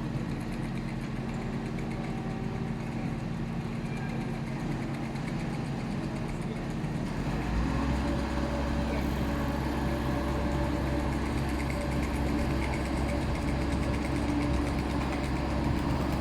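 An engine running steadily at idle, its note stepping up to a heavier, higher drone about seven and a half seconds in, as if under load or revved.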